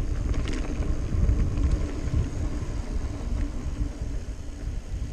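Mountain bike rolling along a dirt singletrack: a steady low rumble from the tyres on the dirt, with a few light clicks and rattles from the bike.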